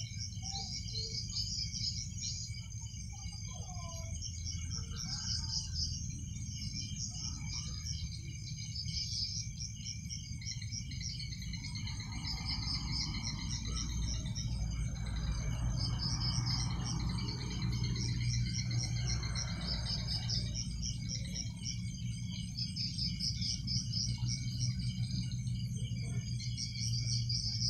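Night insect chorus: crickets trilling steadily at several pitches, with rapid, evenly pulsed chirping above them, over a low steady rumble. A soft rushing noise swells up in the middle and fades again.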